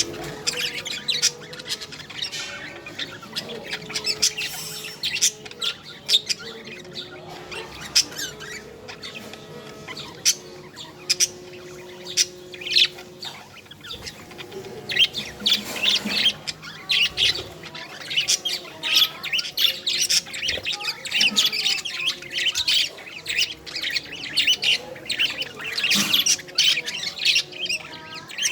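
Budgerigars chirping and chattering in rapid, overlapping squawks, busier in the second half.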